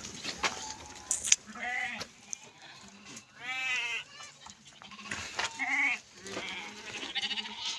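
Goats bleating, about four or five separate wavering calls a second or so apart, with a sharp knock about a second in.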